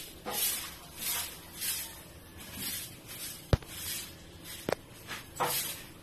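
Footsteps scuffing on a concrete floor, one or two a second, with two sharp clicks about a second apart near the middle.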